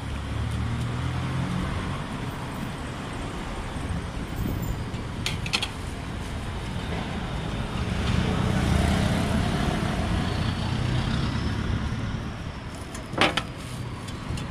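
Road traffic going by, with a vehicle engine swelling and fading around the middle. Near the end comes a sharp metallic clank: an aluminium steamer lid set down on the pot.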